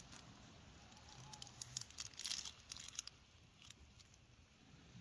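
Campfire crackling faintly, with scattered sharp pops that come thickest around the middle.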